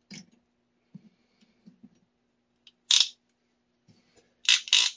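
PEX crimping tool being worked onto a crimp sleeve on the pipe: a few faint knocks, then a sharp metallic scrape about three seconds in and two more in quick succession near the end.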